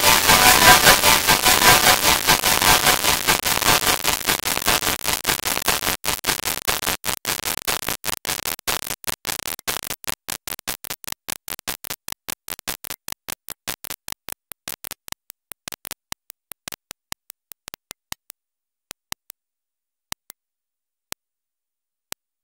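Glitched digital audio from a broken Audacity recording: a harsh static-like hiss that breaks up into rapid clicks. The clicks grow sparser and fainter until only a few isolated clicks are left near the end.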